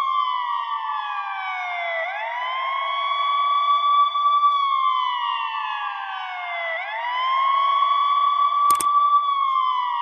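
Fire truck's electronic siren sounding a slow wail. The pitch rises quickly, holds high for about two seconds, then glides slowly down, repeating about twice. A single sharp click comes about nine seconds in.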